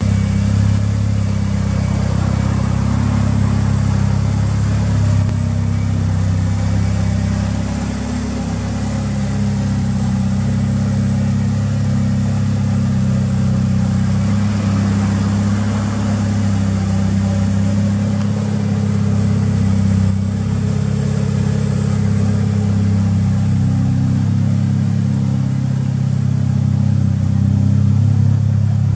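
Mitsubishi Lancer Evolution VIII GSR's turbocharged 4G63 inline-four, fitted with Tomei camshafts and an aftermarket muffler, idling steadily.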